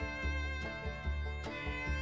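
Background music: a fiddle-led, bluegrass-style tune with a steady bass beat.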